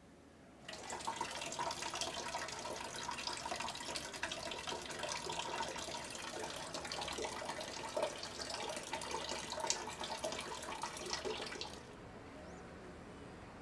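Water running from a wall tap into a laundry tub and splashing over something being rinsed by gloved hands. It starts about a second in and stops abruptly near the end.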